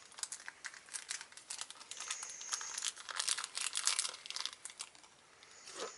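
Thin clear plastic bag crinkling as it is handled and opened, a run of quick, sharp crackles that dies down about five seconds in.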